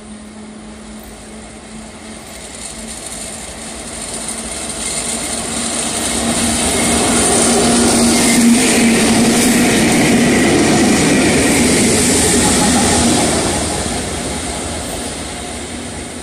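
Twin Indian Railways electric locomotives running light, approaching and passing close by: a steady hum under a wheel-and-rail rumble that builds, peaks over several seconds in the middle, then fades as they pull away.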